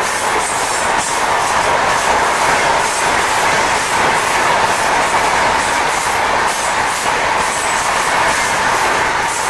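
Rajdhani Express passenger train passing at speed: a loud, steady rolling rumble of wheels on rails with a rapid clickety-clack over the rail joints.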